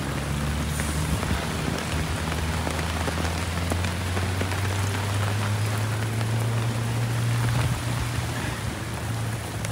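Heavy rain pouring down, a steady hiss of drops, with a low rumble underneath that swells in the middle and eases off near the end.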